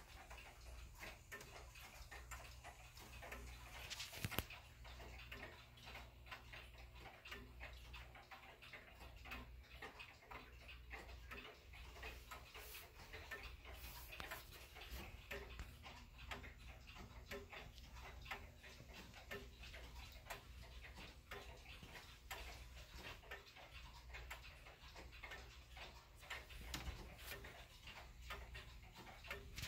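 1930s Kienzle 'Round Top' German grandfather clock's pendulum movement ticking steadily and faintly. There is one sharper click about four seconds in.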